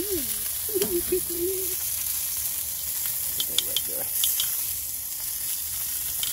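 Chicken pieces sizzling on hot grill grates, a steady frying hiss of the meat's fat and juices. A few sharp light clicks come about three to four seconds in.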